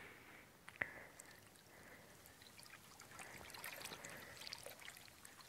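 Near silence: faint room hiss, with one soft click a little under a second in and a few faint ticks later.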